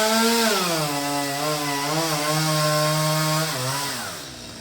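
Two-stroke chainsaw running at high revs while cutting a coconut tree, its pitch dropping about a second in as the chain bites into the trunk and holding steady under load. Near the end the engine note falls and drops away as the throttle is released.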